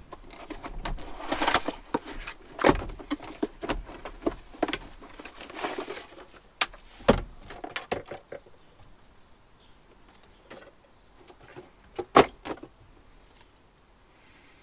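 Cardboard box and packaging being opened and handled: dense rustling, scraping and clicking for the first eight seconds or so, then quieter handling with a couple of sharp knocks near the end.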